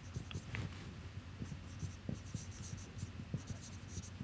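Marker pen writing on a whiteboard: faint, irregular scratchy strokes of the felt tip as letters are written, with small soft taps.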